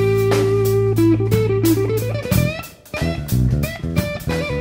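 Background music: an electric guitar melody over bass and a steady drum beat, with a brief drop in loudness a little under three seconds in.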